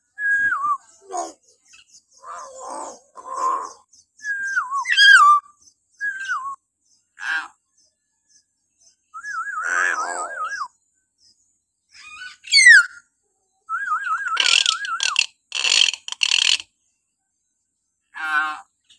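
Hill myna giving a series of shrill calls with short gaps between them: falling whistles, quick wavering trilled whistles, and harsh rasping squawks.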